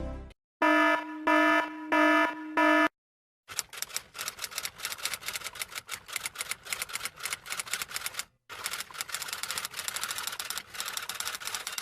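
Four short electronic beeps in quick succession. After a brief gap, a long run of rapid typewriter keystrokes clatters on for several seconds, with a short pause past the middle.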